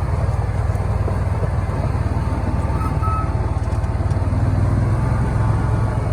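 Engine of a Gator utility vehicle running steadily while being driven.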